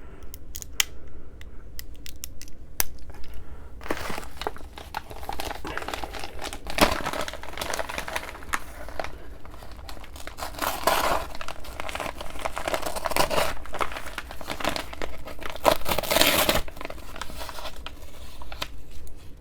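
Shipping package being handled and opened: a few sharp clicks at first, then from about four seconds in a long stretch of crinkling and tearing of packaging, easing off near the end.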